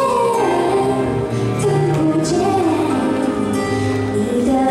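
A young woman singing a Mandarin pop song into a microphone over an instrumental backing track, heard through the hall's PA speakers.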